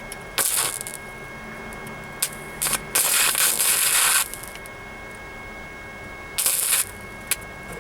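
Flux-core wire welder laying short spot-weld bursts on a sheet-steel floor pan patch: a burst of about a third of a second, two brief ones, a longer burst of over a second, then another short burst and a click near the end. A faint steady whine sits underneath.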